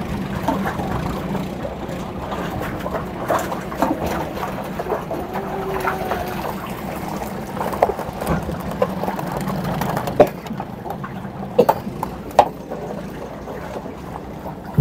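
Small boat engine idling with a steady low hum, with water sloshing and scattered knocks. About ten seconds in the engine hum drops away, leaving a few sharp knocks.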